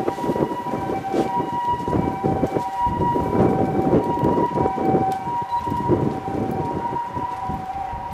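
Railway level-crossing alarm ringing in two alternating tones over the rumble and clatter of an E257 series electric train running past on the rails.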